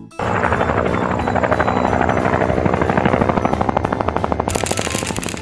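Helicopter-rotor sound effect for a spinning toy propeller: a loud, fast, steady chopping whir that starts right at the outset. A hiss joins about four and a half seconds in.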